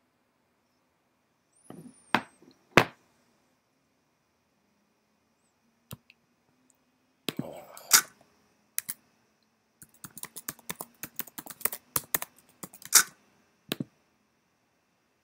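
Keyboard typing and clicking: a few scattered clicks, then a quick, irregular run of keystrokes in the second half, with some handling noise mixed in.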